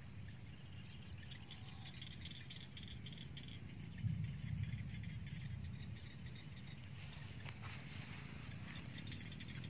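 Faint outdoor ambience: a steady low wind rumble on the microphone with faint scattered chirps, and a soft low bump about four seconds in.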